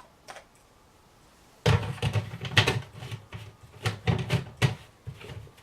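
Plastic humidifier tank parts being handled: a run of knocks, clicks and dull clunks starting about a second and a half in and dying away near the end.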